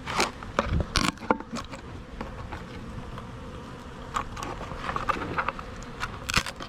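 Russian honey bees buzzing in a steady hum inside an opened 3 lb package, with a few sharp knocks and scrapes from the package's wooden lid being handled and pried off.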